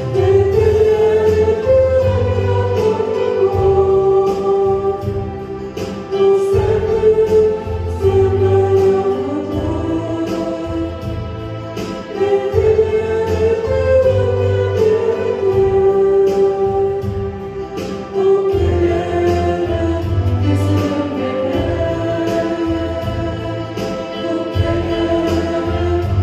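Church worship team playing and singing a worship song: several voices singing a melody together over instrumental accompaniment with a steady beat.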